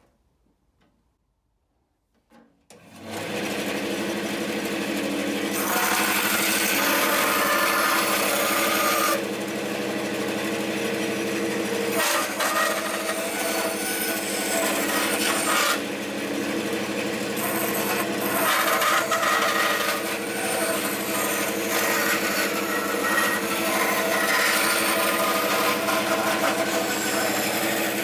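Near silence for nearly three seconds, then a Dewalt DW876 bandsaw starts and runs with a steady motor hum. From about five seconds in, its blade cuts a curve through a small wooden block, adding a loud cutting noise over the hum that comes and goes as the piece is fed and turned.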